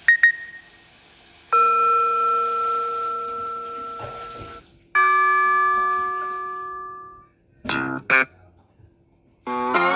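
Samsung Galaxy S25 ringtones played one after another through a Galaxy A54's speaker: a brief chime, then two chords that ring on and fade over two to three seconds each, two quick blips, and a new tone starting near the end.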